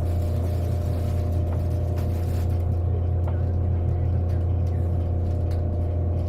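Running noise inside the cabin of an N700-series Shinkansen bullet train: a steady, heavy low hum with a few faint clicks.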